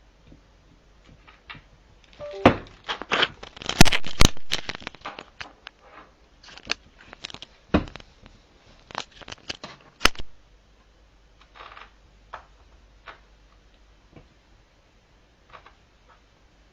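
A run of sharp clicks and knocks mixed with rustling, thickest between about two and five seconds in, then a few scattered taps.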